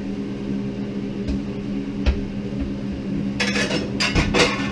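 Dishes and cutlery clattering on a kitchen counter near the end, after a couple of single knocks, over a steady low hum.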